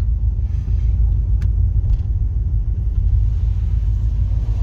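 Steady low rumble with a faint click about one and a half seconds in.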